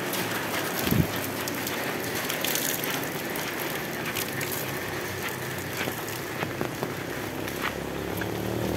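Steady heavy rain falling on a paved road, roofs and leaves, with scattered drips and a low thump about a second in. Near the end a motorcycle engine starts to be heard approaching.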